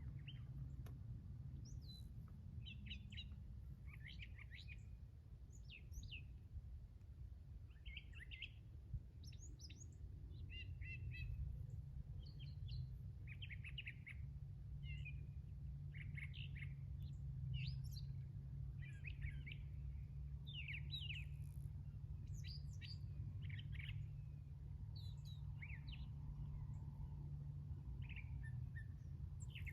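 Small backyard birds chirping and twittering, many short quick calls overlapping one another, over a steady low hum.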